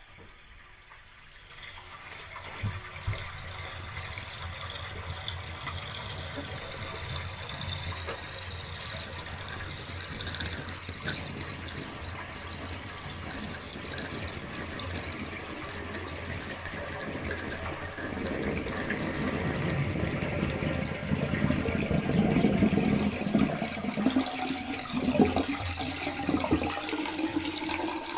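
Bathtub water draining down the plughole, a continuous rushing, swirling flow that grows louder and rougher about two-thirds of the way through.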